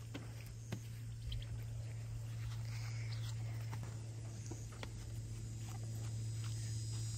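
Scattered knocks, clicks and rustles from a long-handled catch net being worked inside a wood-and-wire-mesh quail pen, with a few faint short chirps about a second and three seconds in, all over a steady low hum.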